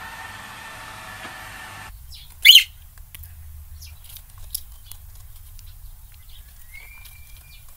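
A robot vacuum's steady motor hum, cut off about two seconds in. Then a parrot gives one loud squawk, followed by scattered beak clicks and soft chirps, and a short level whistle near the end.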